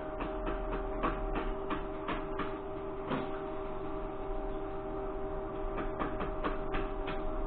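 Irregular light metallic clicks and knocks, a few a second, from hand-tool work on a steel rock-drill auger head, over a steady workshop machine hum.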